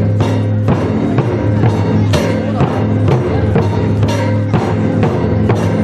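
Japanese taiko drums struck in a steady rhythm, roughly two strokes a second, over recorded backing music with sustained low tones.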